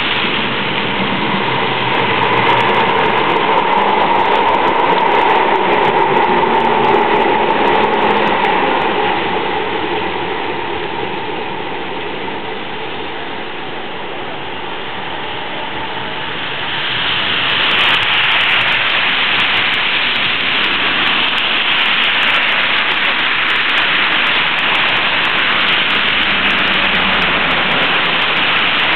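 Street traffic on a wet, slushy road: a steady hiss of tyres with a tram's running tone for the first several seconds, a lull, then a louder, brighter hiss from about 17 seconds in as a coach drives past close.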